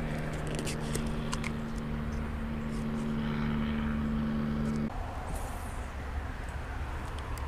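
A steady low engine-like drone that cuts off suddenly about five seconds in, leaving a low rumble, with scattered light clicks and rustles.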